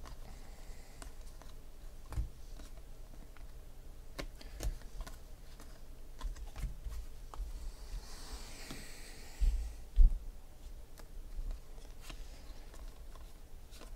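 2016 Panini Contenders football trading cards being flipped and slid through the hands, giving scattered small clicks and flicks. A brief rustle comes about eight seconds in, followed by a couple of soft knocks around ten seconds.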